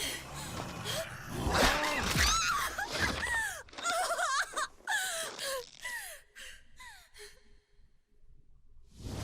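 Animated characters' voices gasping, groaning and crying out in strain, a run of short cries that bend up and down in pitch, then fade to near silence near the end.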